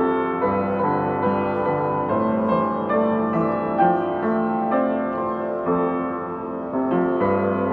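Background piano music, slow notes and chords changing about once a second.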